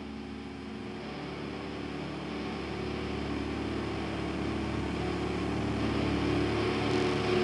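A steady noisy drone: a hiss with several low, steady hum tones beneath it, slowly growing louder.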